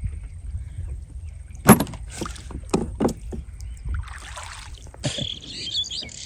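Sharp wooden knocks and clunks from a fisherman working the bamboo frame of a lift net on a wooden boat, over a low rumble. There are about four knocks in the first few seconds, the loudest about two seconds in. Near the end, birds chirp.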